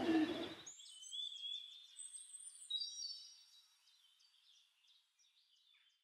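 Background music cutting off under a second in, followed by high whistled bird calls and chirps, several overlapping, that fade away over the next few seconds.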